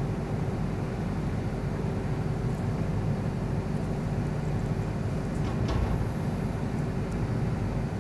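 Steady low background rumble with a faint hum in it, and one brief click about five and a half seconds in.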